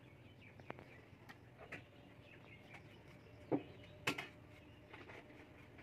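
Potato being cut into sticks on a bonti blade: scattered small clicks, with two louder clicks about three and a half and four seconds in as the cut sticks drop into a steel bowl of water. Faint bird chirps behind.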